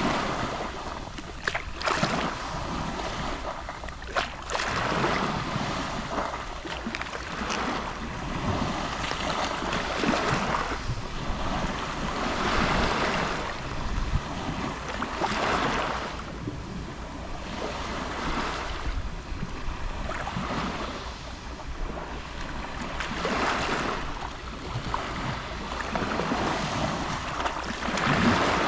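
Gentle sea waves lapping on the shore, each wash swelling and falling away every few seconds. A low rumble of wind on the microphone runs underneath.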